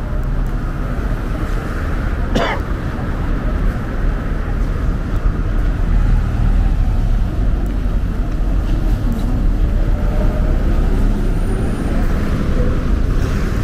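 Road traffic: the low steady rumble of buses and cars moving on the road alongside, growing louder about halfway through. There is a brief sharp sound about two seconds in.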